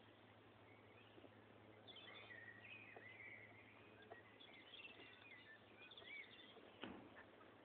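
Faint birdsong: several birds chirping and warbling in short, up-and-down phrases, over a low steady hum. A single brief knock sounds near the end.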